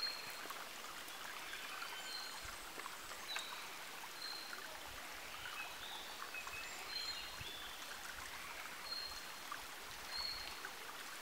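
Forest ambience: a stream running steadily, with birds calling in short whistled notes again and again over it.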